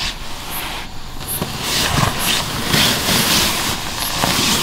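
Rustling and shuffling of a backpack and fabric being handled on a mattress, with a few soft knocks.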